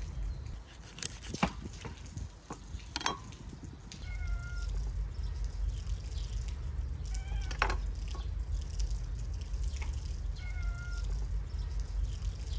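A cat meowing in a few short calls, two of them about six seconds apart, among sharp knife taps and cuts on a wooden cutting board as raw chicken is cut up. A low steady rumble runs underneath.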